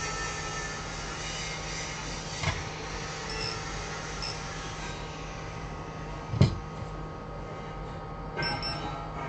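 Steady electric hum with several faint high tones held underneath. Over it come two sharp taps, the louder one about six and a half seconds in, and a brief scrape near the end.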